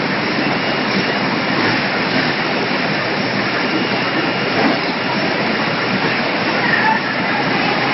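Steady din of an automatic poultry processing line running, a continuous mechanical and rushing noise.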